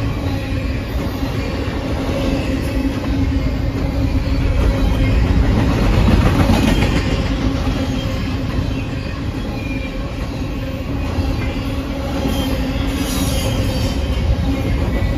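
Double-stack container freight train cars passing at speed: a steady heavy rumble and rattle of steel wheels on rail. Faint high wheel squeal comes in near the end.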